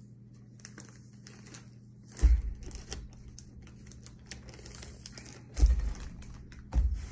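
A plastic zip-top bag of powder crinkling and crackling as it is handled and pressed shut, with two dull thumps about two seconds and five and a half seconds in.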